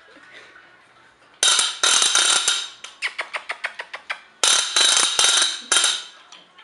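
A harsh, loud rattling noise made to startle puppies in a sound-reaction test. It starts about a second and a half in with a burst of about a second, breaks into a run of fast clicks at roughly ten a second, then comes back as another long burst.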